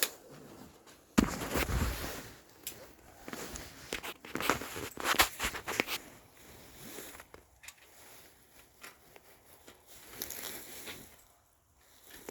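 A series of sharp clicks, knocks and rustling handling noises, loudest about a second in and again about five seconds in.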